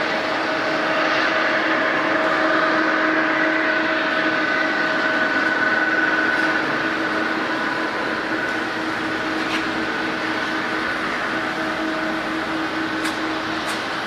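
Boeing 777-200 jet engines running steadily: a rush of noise with a constant whine on top. It swells a little over the first few seconds, then eases, with a few faint clicks near the end.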